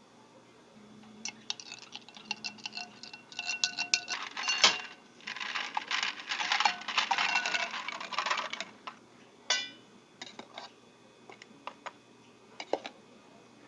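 Ice cubes clinking against a drinking glass, with short ringing clinks at first and one sharp knock a little before five seconds in. A dense rattle of ice tumbling into the glass runs for about three and a half seconds, followed by a few separate clinks of a spoon against a steel milk pitcher near the end.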